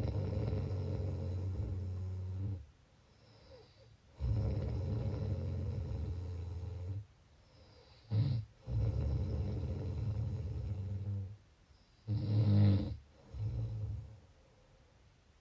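A person snoring: three long, steady, low buzzing snores of two to three seconds each, with quiet pauses between, then two shorter snores near the end.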